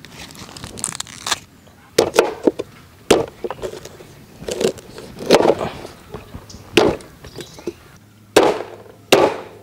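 A large knife chopping corn cobs into pieces on a wooden cutting board: a string of sharp chops, about eight of them at uneven intervals, starting about two seconds in.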